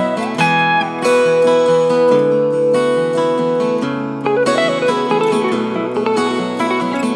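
Background instrumental music led by a plucked acoustic guitar, with sliding notes about halfway through.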